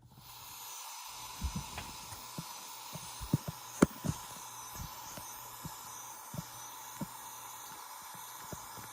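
Radio receiver static: a steady hiss with a faint steady tone and hum, broken by irregular crackling pops, the sharpest a little under four seconds in.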